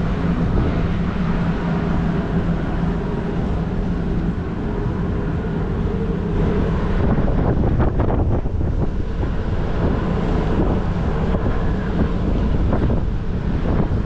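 Wind buffeting the microphone, a steady rumble that grows a little stronger from about halfway through, over a steady low hum.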